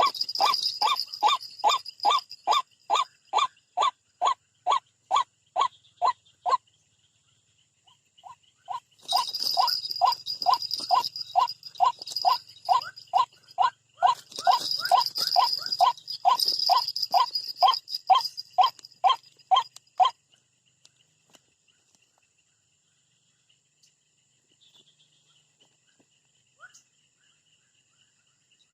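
White-breasted waterhen (ruak-ruak) calling, a single note repeated about three times a second in two long series, the second starting about 9 seconds in and stopping about 20 seconds in. A higher, hissy sound rides over parts of the calling.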